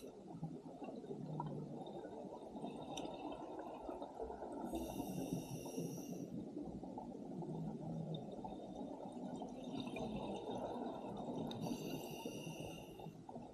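Scuba diver breathing underwater through an open-circuit regulator: a whistling hiss on each inhalation, twice about six to seven seconds apart, each lasting about a second and a half, over the continuous rumble of exhaled bubbles.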